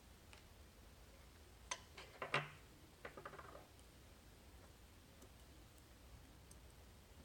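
A few sharp small clicks, the loudest about two and a half seconds in, then a brief rattle of lighter clicks, from a pin tumbler lock being taken apart by hand.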